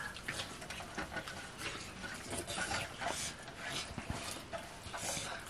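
People eating rice by hand from steel plates: scattered soft clicks and scrapes of fingers and rice against the metal, with a low thump about four seconds in.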